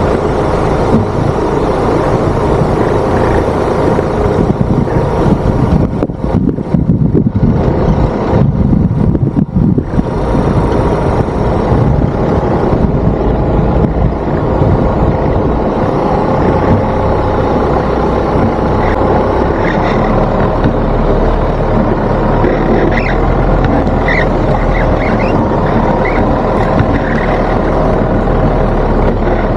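Motorhome driving on the road: steady engine and road noise with a low rumble.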